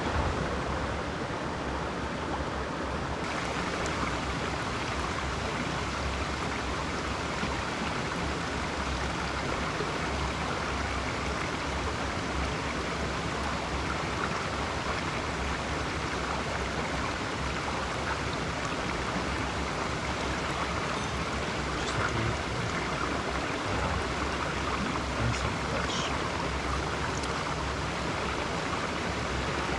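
A small, rocky mountain stream running close by, a steady rush and babble of water over stones.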